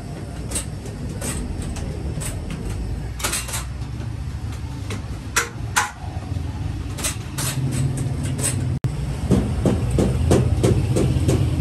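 Rotating bakery oven running: a steady low machine hum from the turning deck's drive and burner, with scattered sharp clicks. After about nine seconds the clicks come quickly and evenly, about three or four a second.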